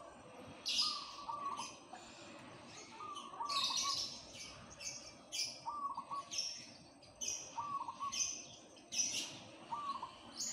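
Caged zebra dove (perkutut) cooing, a short phrase of a few notes about every two seconds, five times. Louder high chirps of other small birds come in throughout.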